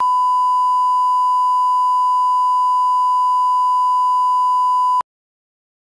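Electronic test tone: one steady pure beep held for about five seconds, then cut off suddenly into silence.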